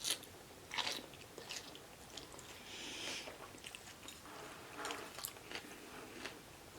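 A person chewing and biting food close to the microphone: scattered sharp, wet mouth clicks and soft crunches.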